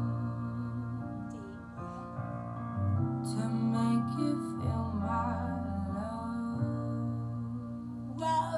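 Music playing: a song with piano or keyboard and a singing voice over a steady bass.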